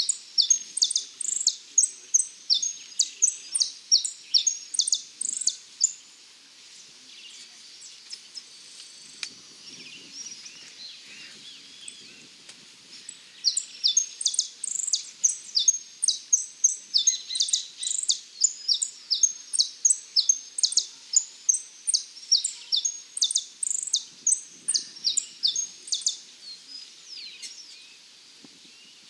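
Saffron finch singing two long runs of rapid, high chirping notes. The first run stops about six seconds in. The second starts near the middle and goes on for about twelve seconds before stopping.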